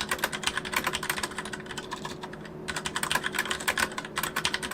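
Fast typing on a mechanical keyboard with Cherry MX Brown switches: a quick run of key clacks, a brief pause a little over two seconds in, then another run.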